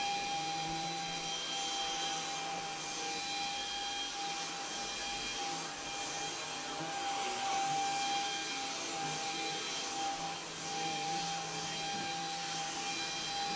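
Cordless stick vacuum cleaner running steadily, its motor giving a constant whine over an airy rush as it is moved across the floor.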